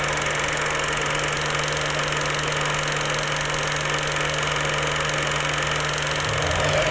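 Film projector running: a steady mechanical whir with a low, constant hum.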